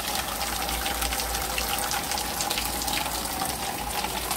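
Heavy rain pouring down: a dense, steady hiss with many drops splashing close by.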